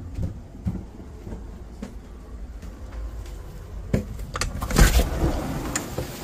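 Handling noise from a phone being carried while walking: scattered knocks and rustling over a low rumble, with a louder clatter about five seconds in.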